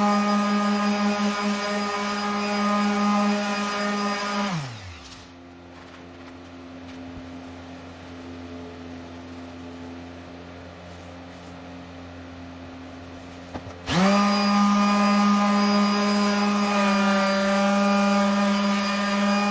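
An electric sander running steadily, switched off about four and a half seconds in and winding down with a falling pitch, then switched back on about fourteen seconds in, spinning quickly up to speed and running on.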